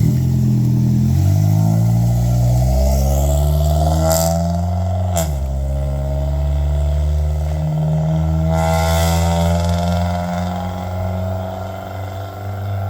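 1997 Honda Civic's swapped-in D16Y7 four-cylinder engine running while the car drives. Its pitch climbs over the first few seconds, drops sharply about five seconds in as the automatic transmission upshifts, then holds steady.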